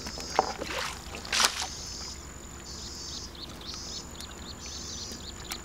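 Water splashing twice, about half a second and a second and a half in, as hands rummage through a catch in a plastic basket standing in shallow water. A high chirring keeps coming and going in short bursts behind it.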